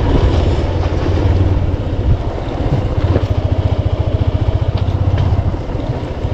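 Motorcycle engine running at low speed while riding over a gravel track, a steady low throb with a few short sharp knocks.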